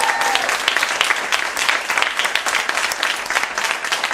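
Live audience applauding: dense, steady clapping that eases off gradually.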